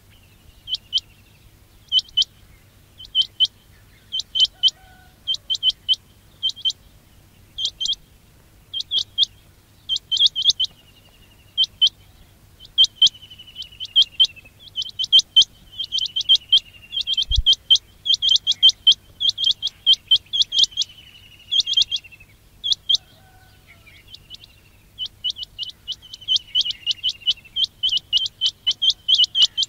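Quail calling over and over: sharp, high whistled notes in quick clusters of two to four, every second or so, with a few lower trilling notes mixed in. This is a recorded call of the kind used to lure quail to traps.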